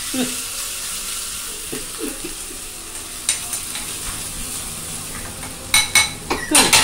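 Onion and green chilli sizzling in hot oil in a small tempering ladle as they are stirred and sautéed, a steady frying hiss. Near the end a spoon clinks and scrapes sharply against the metal several times.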